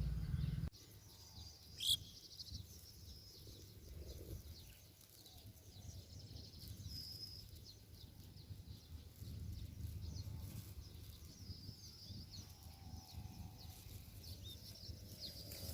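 Faint birds chirping over low wind rumble, with one sharp click about two seconds in.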